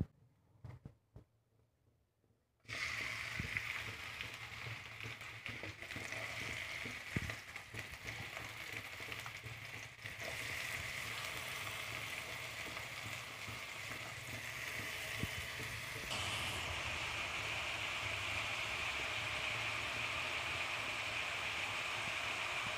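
Chopped onions sizzling in hot oil in a pan: the hiss starts suddenly about three seconds in as the onions go in, then carries on steadily with a few light knocks, growing a little louder about sixteen seconds in.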